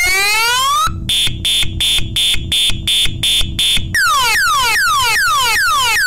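DNI4059 six-tone 12/24 V piezoelectric siren cycling through its tones. A rising whoop ends about a second in, then rapid high beeps at one pitch, a little over three a second. About four seconds in it changes to a quick run of falling sweeps, about three a second.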